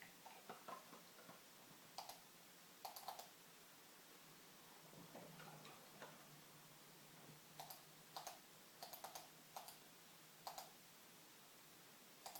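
Faint, irregular short clicks and ticks, some single and some in quick clusters of three or four, against near silence. A faint low hum rises and fades about halfway through.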